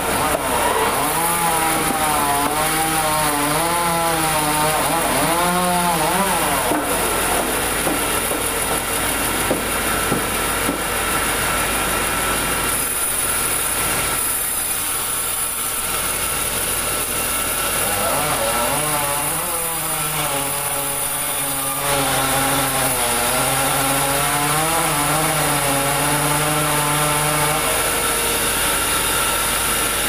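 Vertical band saw mill cutting through a large meranti log: steady, loud machine running with a pitched whine that wavers up and down for several seconds at a time, near the start and again in the second half.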